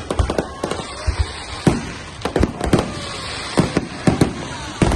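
Fireworks display: aerial shells bursting in quick, irregular succession, a dozen or more bangs with rumbling echoes between them.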